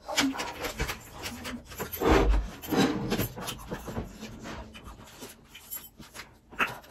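Dishes and food packets being handled on a table: a plate scraping as it slides across the table mat and small plastic sauce sachets crinkling, in irregular rubbing and rustling strokes.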